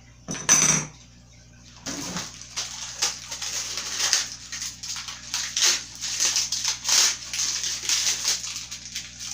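Plastic packaging being handled: a short loud rip about half a second in, then continuous crinkling and rustling of plastic wrap.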